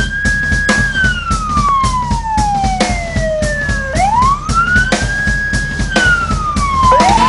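Emergency vehicle siren wailing: each cycle rises quickly, holds high for a moment, then slides slowly down, repeating about every four seconds, with a new rise overlapping the end of the last fall. Music with a beat plays underneath.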